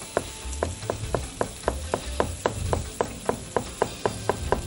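Kitchen knife slicing shiitake mushrooms thin on a cutting board: a quick, even run of knocks as the blade meets the board, about four cuts a second.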